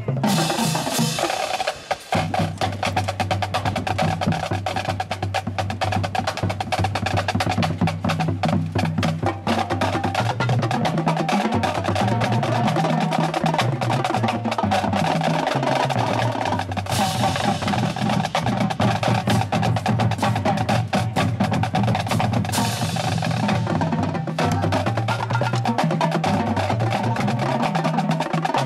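Marching band drum line playing a fast feature: rapid snare strokes, rolls and rim clicks over bass drums that step through low pitches, with a few cymbal crashes.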